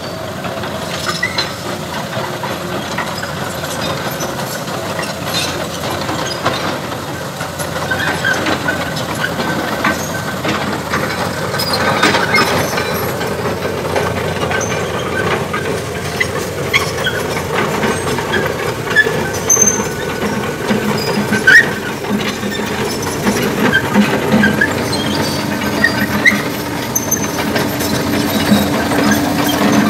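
Tracked hydraulic excavator at work: diesel engine running, with scattered metallic clanks and short squeals from its steel tracks and bucket, over a steady rush of flowing canal water. A steady engine drone joins in about two-thirds of the way through.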